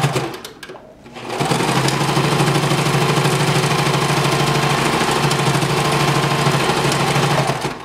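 Electric domestic sewing machine stitching a straight seam through bandana fabric. A brief run stops within the first second, then after a short pause the machine stitches steadily and fast for about six seconds, stopping near the end.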